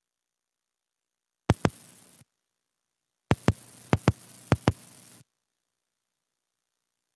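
Heartbeat sound effect: loud paired lub-dub thumps over a hiss, one beat, then after a gap three more about 0.6 s apart, each run starting and stopping abruptly.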